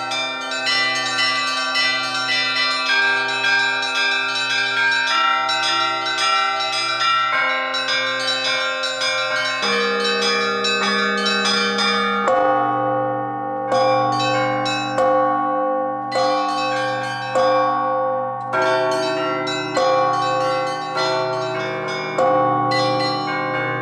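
Russian Orthodox church bells rung together: small bells in a quick ringing pattern over regular strokes of the larger bells, each stroke ringing on. About halfway the small bells stop for a moment and the pattern changes.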